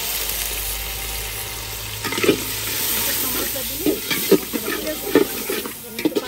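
Ground spices in hot oil sizzling in an aluminium cooking pot, with a little water just added so the spices don't burn. From about two seconds in, a metal spatula stirs the spice paste, scraping against the pot in short irregular strokes.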